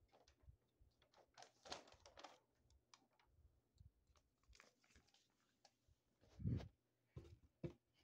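Faint handling noises: a folded paper instruction sheet rustling and crinkling in the hand, with scattered light clicks and a dull thump about six and a half seconds in.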